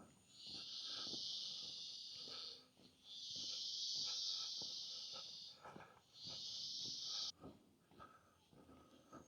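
Rainforest insects buzzing in three long, hissing bursts, the last cutting off abruptly about seven seconds in, over soft footsteps on the forest floor.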